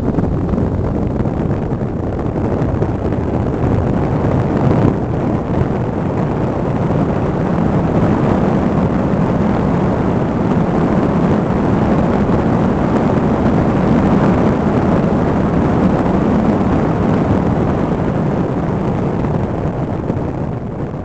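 Road and wind noise from a vehicle driving and picking up speed: a steady, loud rush with no clear engine note.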